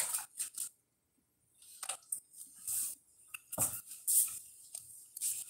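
Scattered light clicks, knocks and rustles of groceries being handled and put away out of view, with a duller knock about three and a half seconds in.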